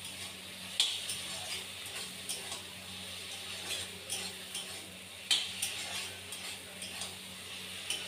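Metal spatula stirring and scraping taro-leaf curry around a kadai, with irregular scrapes and clinks against the pan over a low sizzle.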